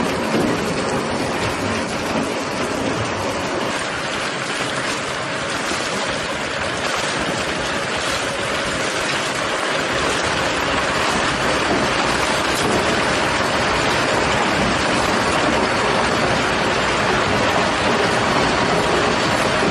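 Disc roller screen running under load: stones and mud tumbling and rattling over the rotating disc shafts in a dense, continuous clatter, with a faint steady tone underneath.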